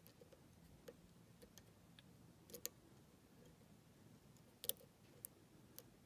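Faint, irregular clicks and ticks of a steel hook pick working the pins inside a pin-tumbler lock cylinder under tension, a few scattered taps with one sharper click about two-thirds of the way through.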